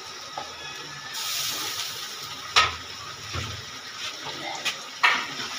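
Meat hitting a hot pan of masala and sizzling, the hiss swelling about a second in. A few sharp knocks against the pan as it is stirred in, the loudest about two and a half seconds in.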